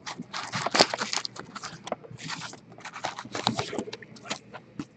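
Trading cards and their clear plastic cases being handled in a cardboard box: irregular rustling, scraping and clicking as they are moved and sorted.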